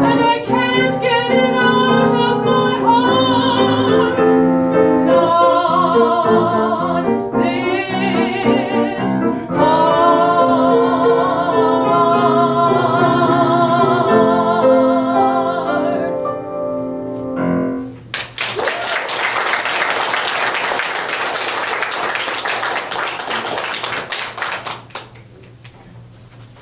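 A woman singing solo with piano accompaniment, her voice wavering in vibrato; the song ends about 17 seconds in and is followed by audience applause lasting about seven seconds.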